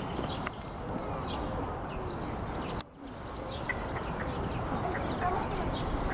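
Birds chirping, many short high calls scattered throughout over a steady outdoor hiss. The sound drops out briefly just before three seconds in.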